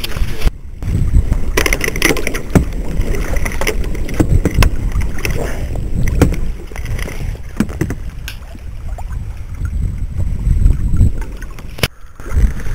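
Wind rumbling on the microphone during a kayak outing, with scattered sharp knocks and bumps.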